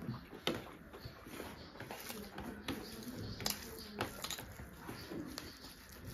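Close-miked eating sounds: chewing, lip smacks and wet clicking mouth noises, with rice and curry being squished and mixed by hand, in a scatter of short irregular clicks.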